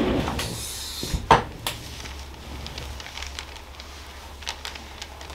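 A single sharp crack about a second in, with a fainter click just after it: neck joints popping during a manual chiropractic neck adjustment.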